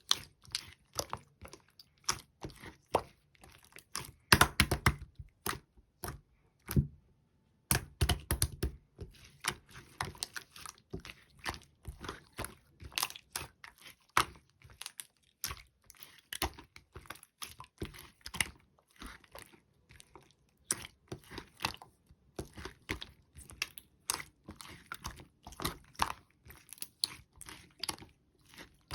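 Clear slime being squished and poked by hand, giving a run of irregular sticky clicks and pops, with louder squelching around four and eight seconds in and a brief pause just before the second.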